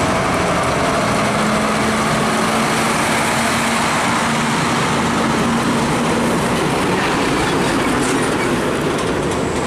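Heavy truck with a trailer rolling slowly past at close range: a steady diesel engine drone at one pitch over loud tyre and road noise. The drone fades about six and a half seconds in, and road traffic noise carries on.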